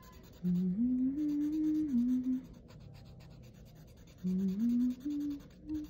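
A person humming a slow wordless tune in two short phrases of held notes stepping up and down. Faint scratching of a felt marker on paper sits underneath.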